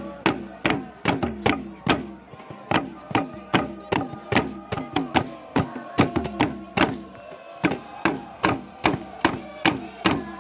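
Traditional dance music: a steady beat of sharp percussion strikes, about two and a half a second, with voices chanting a melody over it.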